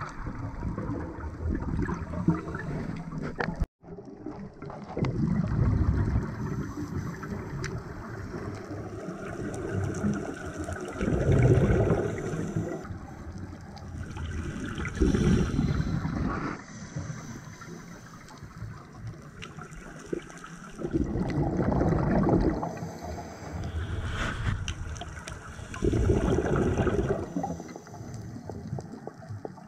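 A scuba diver's regulator breathing heard underwater: a rush of exhaled bubbles every four to five seconds over a steady water hiss.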